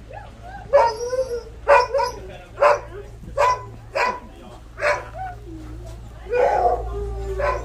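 Sled dogs barking in their kennel runs: a string of about seven short barks roughly one a second, then a longer, drawn-out call near the end.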